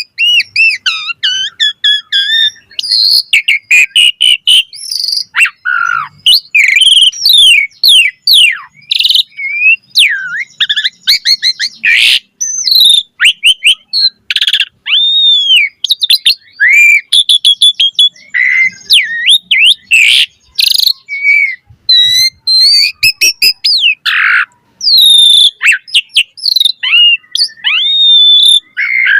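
Asian pied starling (jalak suren) singing in full voice: a long, fast, ever-changing song of whistles, rising and falling glides and sharp clicks, with hardly a pause.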